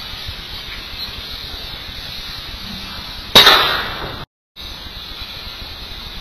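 A single PCP air rifle shot about three seconds in, a sharp crack with a short fading tail, over a steady hiss.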